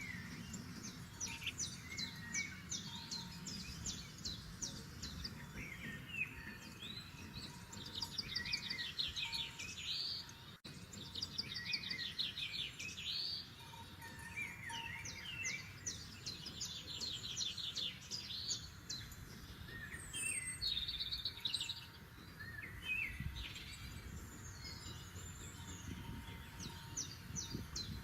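Forest songbirds singing, several songs overlapping without pause: rapid high trills and chirped phrases over a low, steady background noise.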